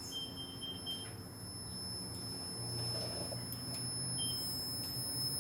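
1993 Heil 5-ton air conditioner unit after being switched off, its compressor giving a low hum that starts about halfway through and grows louder, which the owner takes for the compressor relieving its pressure and says does not sound good. A faint steady high whine runs throughout, with a short run of high beeps near the start.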